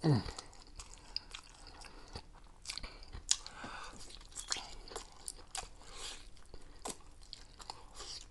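Close-miked eating sounds: chewing and biting into food with repeated wet smacks and small crunches. A short low thump right at the start is the loudest sound.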